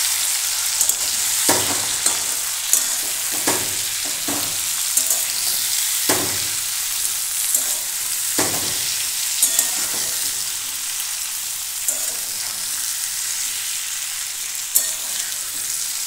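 Tomato wedges, fried potatoes and green chillies sizzling in hot oil in a metal kadai as they are sautéed, with a steady frying hiss. A metal spatula scrapes and knocks against the pan at irregular moments, every second or two, as the vegetables are stirred.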